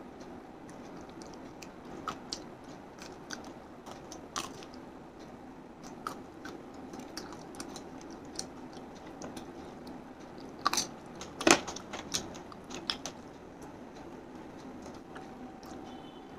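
A person eating fried chicken with her fingers: close-up chewing and biting, with scattered crisp clicks and a few louder sharp crunches about eleven seconds in.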